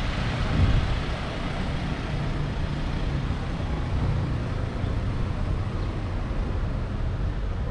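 Steady road traffic noise: a continuous rumble of passing vehicles with no distinct single event.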